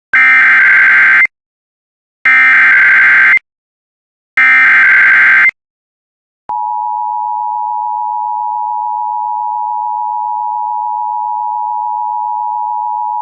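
Emergency Alert System tornado warning opening. First come three identical bursts of SAME header data, a harsh digital warble about a second long each, with a second's pause between. Then, about halfway through, the steady two-tone attention signal starts and holds.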